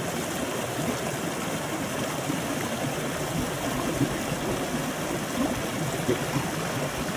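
A small woodland stream running over rocks and little falls: a steady rush of splashing water.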